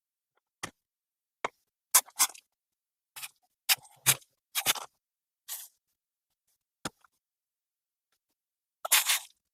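A string of separate short clicks, taps and scrapes, about a dozen, with a longer scrape near the end: small parts and tools being picked up and set down.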